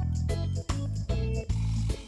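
Background music with a steady beat, bass and plucked-string notes.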